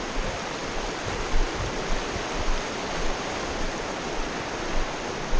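Fast mountain river running over rapids: a steady rush of water, with occasional low thumps of wind on the microphone.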